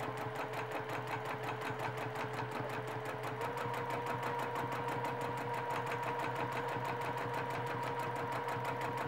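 Sewing machine with a free-motion quilting foot stitching steadily at speed, the needle strokes an even rapid patter over the motor's whine. The whine steps up in pitch a few seconds in as the machine speeds up.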